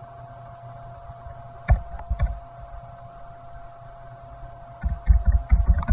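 Computer keyboard being typed on: two single key presses about two seconds in, then a quick run of keystrokes near the end, over a faint steady hum.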